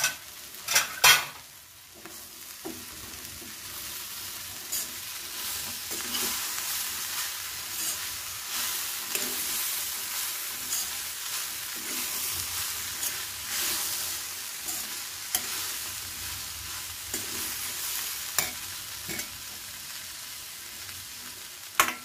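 Metal spatula stirring and scraping chickpea sundal with grated coconut around a metal kadai over a steady frying sizzle. Two sharp knocks of metal on the pan come about a second in, and another near the end.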